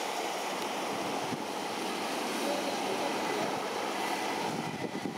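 Steady, even background noise with no distinct sound standing out.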